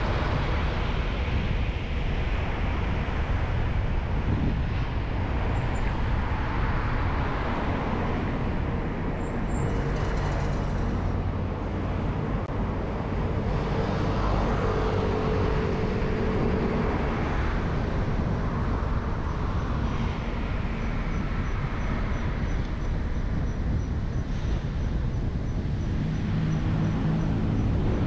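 Steady road and traffic noise from a car driving on city streets: tyre and engine noise with surrounding vehicles, and a brief engine hum from a nearby vehicle about halfway through.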